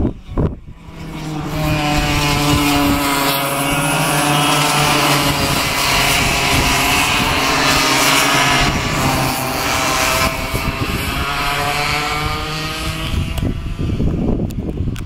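A pack of cadet racing karts' small two-stroke engines running as they pass, several engines buzzing together, the pitch rising slowly and then falling away, fading out near the end.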